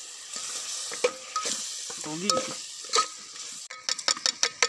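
Onion-tomato masala sizzling in an aluminium pot while a perforated steel ladle stirs it, scraping and clinking metal on metal. Near the end comes a quick run of sharp metal clicks and clinks as the ladle and pot lid work against the pot.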